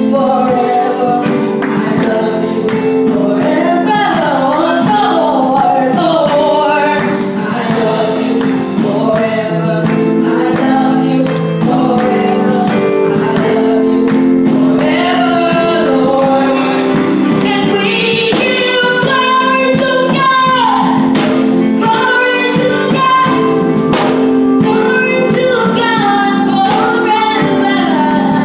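Gospel praise-and-worship singing: a boy's voice sings through a microphone over sustained keyboard chords.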